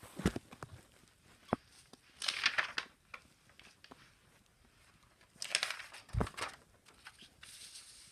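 Rustling and knocking handling noise: two longer rustles, one a couple of seconds in and one past the middle, with a few sharp clicks and a low thump between them.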